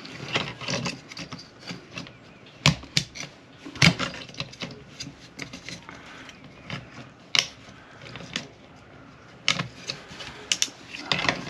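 Irregular sharp clicks and knocks of a plastic work-light stand being handled as the light is pressed into it and its small clips are worked into place.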